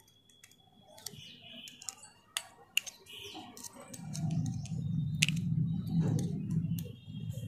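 Small sharp metal clicks and taps of a sewing machine shuttle and screwdriver being handled after a screw is tightened. A low steady hum joins them about halfway through.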